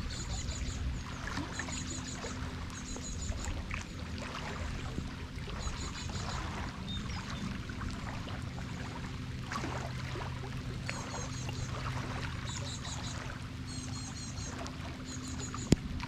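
Steady rain falling with water trickling and pouring over a low, steady hum. There is a single sharp knock just before the end.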